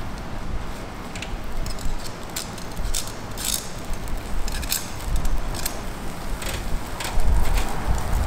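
Shellfish sizzling and crackling as they grill over a coal-briquette fire, with a scattering of sharp clicks and ticks.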